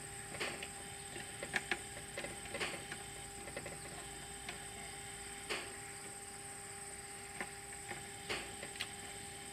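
Scattered light clicks and rubbing as electrical wires are worked up into the bottom of a plastic solar combiner box by hand, over a steady faint high-pitched whine.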